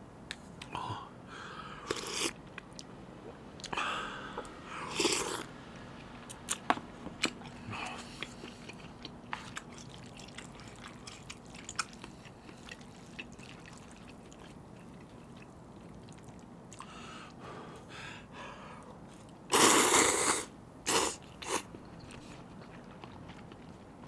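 Close-miked eating of spicy seafood jjamppong noodles: wet chewing and mouth smacks with scattered clicks. The loudest part is a noisy burst about a second long about twenty seconds in, followed by two shorter ones.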